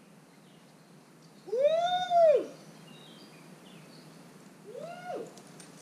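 Two hooting calls, each rising then falling in pitch: a loud one about a second long, then a shorter, quieter one near the end.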